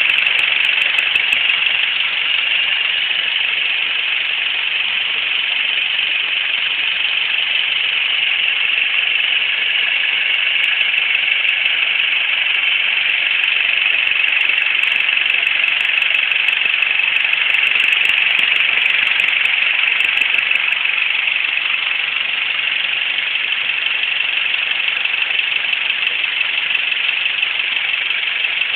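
Vehicle engine idling with a steady ticking.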